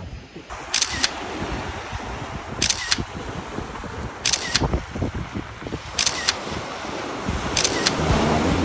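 Camera shutter firing five times, each a quick double click, about every second and a half to two seconds, over a steady outdoor background hiss.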